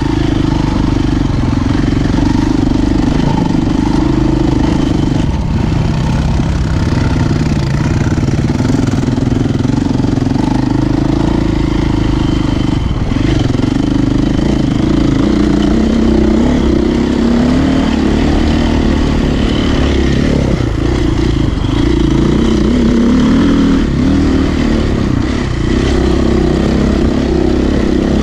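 Dirt bike engine running loud at close range, its pitch rising and falling with the throttle as the bike is ridden.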